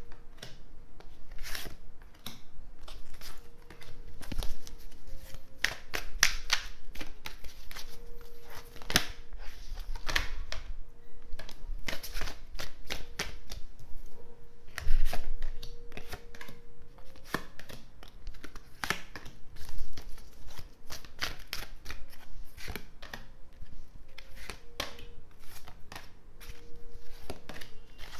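Tarot cards being dealt one at a time onto a tabletop: an irregular run of soft card slaps and slides, with a few louder slaps around the middle.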